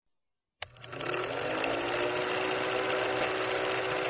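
Film projector running: a click about half a second in, then a rapid, steady mechanical clatter with a motor whine that rises in pitch as it comes up to speed and then holds.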